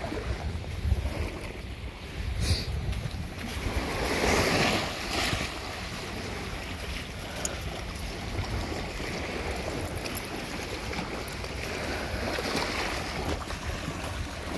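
Wind blowing across the microphone, with small waves washing up onto the sand; a louder rush comes about four seconds in.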